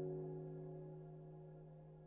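Background piano music: a sustained chord slowly dying away, with no new notes struck.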